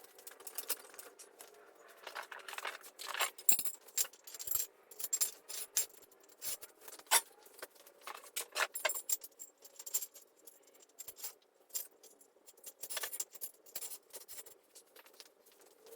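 Irregular light clicks, taps and clinks of small hard objects being handled, spread through the whole stretch, some louder than others.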